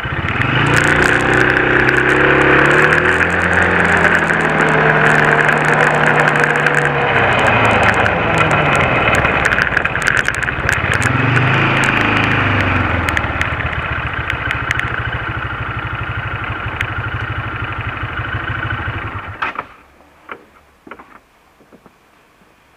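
Quad bike engine pulling away from a stop, its pitch rising as it accelerates and falling as it eases off, twice. About twenty seconds in the engine is switched off and cuts out abruptly, followed by a few faint knocks.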